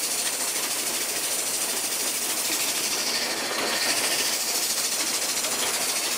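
Wood lathe spinning a wooden bowl blank while 400-grit sandpaper is held lightly against the inside of the bowl: a steady, even hiss of hand sanding over the running lathe.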